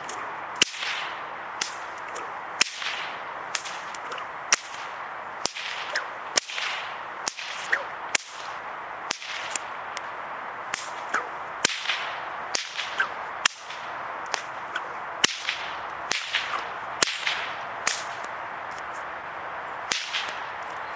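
A bullwhip cracked over and over in a running Victorian cutback routine. There are about thirty sharp cracks, one to two a second, each with a short swish of the thong. The cracks pause for about two seconds near the end, then one more crack.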